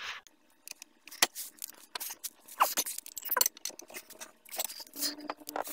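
Faint, irregular metal clicks and clinks from hand tools: a ratchet wrench being worked on the socket and torque angle gauge of a brake caliper bracket bolt.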